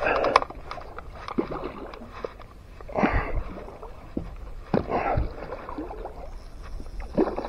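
A few separate splashes in shallow water, about two seconds apart, some with a low thud.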